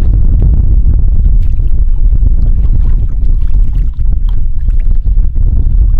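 Strong wind buffeting the microphone: a loud, low rumble throughout, with light splashing of shallow water over it.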